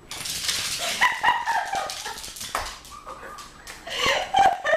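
A beagle running around on a slick hardwood floor, its claws clicking and scrabbling. It gives excited yelping whines about a second in and again near the end.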